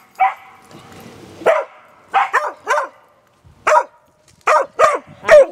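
A dog barking repeatedly: about nine short barks, with a brief pause a little past the middle.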